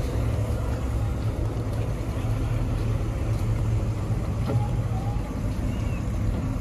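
A car engine idling steadily with a low rumble, with faint voices in the background.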